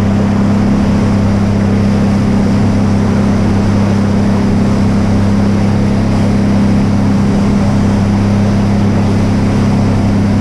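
Yamaha 250 outboard driving a fishing boat at speed: a steady, unchanging drone with the rush of water from the hull underneath.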